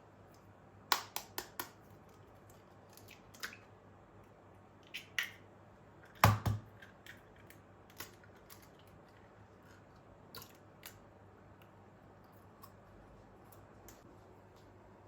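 Light clicks and taps of small objects being handled, with a quick run of four about a second in and one louder knock about six seconds in.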